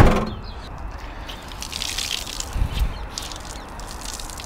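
Water splashing and dripping from a wet chamois leather being wrung out onto wet concrete, in uneven spurts through the middle, after a short thump right at the start.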